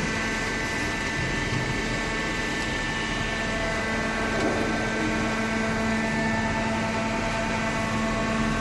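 Hydraulic cardboard baler running: its motor and hydraulic pump give a steady hum with a constant whine.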